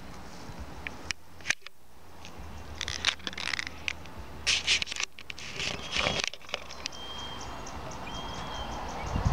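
Irregular crackling rustles and sharp clicks, thickest in the middle, over a low steady hum.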